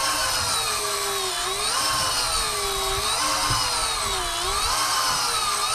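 Electric fishing reel motor winding in line with a whine whose pitch sags and recovers about every second and a half, the motor straining against a fighting fish on the deep-drop line.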